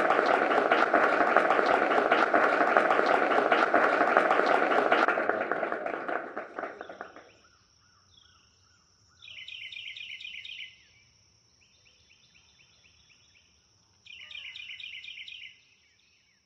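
Audience applauding, fading out about seven seconds in. Then a nature sound bed: a steady high thin whine with two bursts of rapid chirping.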